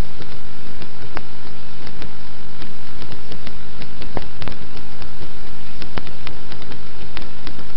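Background music: a steady, buzzy synthesizer drone held on one chord, with scattered sharp clicks.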